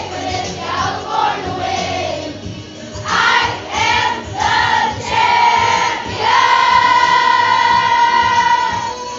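A group of schoolchildren singing a pop song together over recorded backing music, holding one long note from about six seconds in.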